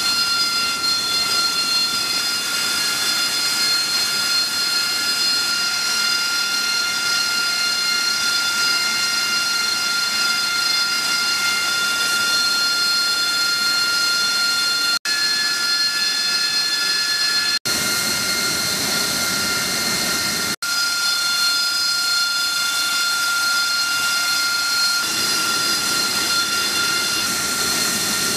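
AV-8B Harrier's Rolls-Royce Pegasus turbofan running steadily on the flight deck: a rushing jet noise with a high whine of several steady tones. It cuts out for an instant three times, and the tones shift slightly between takes.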